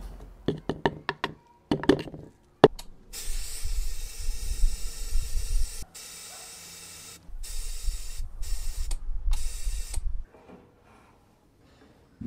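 A few sharp taps and clicks of a spoon against a plastic powder cup, then a powder-coating gun spraying: a steady air hiss with a low rumble for about three seconds, a quieter stretch, then more hissing broken by two short pauses before it stops.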